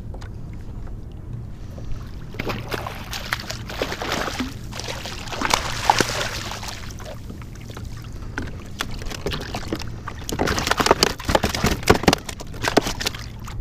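A hooked fish splashing at the surface beside a kayak as it is grabbed by hand, then a second spell of splashing and sharp knocks as it is brought aboard.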